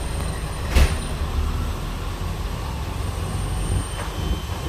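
Steady low rumble of a KiHa 40 diesel railcar's engine, heard from inside the passenger cabin as the train starts to pull away from a station. A single sharp knock sounds about a second in.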